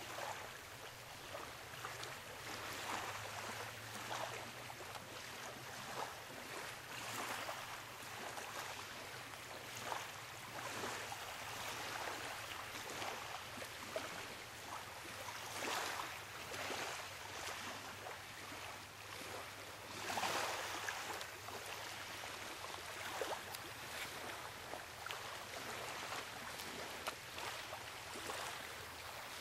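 A steady rush of running water outdoors, swelling louder now and then in irregular gusts.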